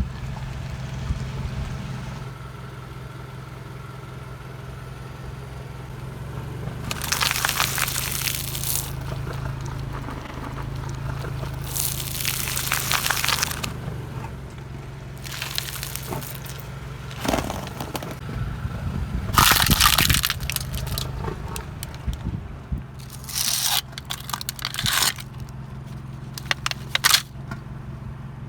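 Objects being crushed under a car's tyres: a series of crunching and cracking bursts, the loudest about two-thirds of the way through, over the low, steady hum of the car's engine.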